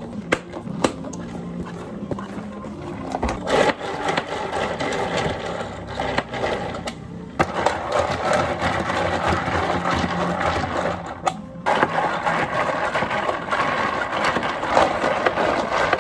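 Drink-making noise at a cafe counter: a few sharp clicks, then a continuous rushing, clattering noise that breaks off briefly twice and runs on.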